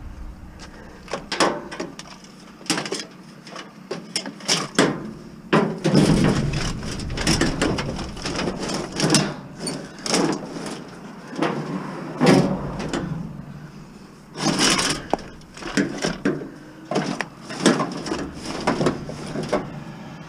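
A heavy sheet-metal appliance being shoved and slid into the back of a minivan: a run of irregular knocks, clunks and scraping of metal against the van's floor and interior.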